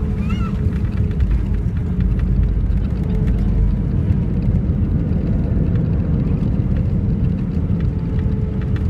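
Cabin noise of an Airbus A319 rolling down the runway just after landing: a steady low rumble from the engines and the wheels on the runway, with a faint steady hum above it.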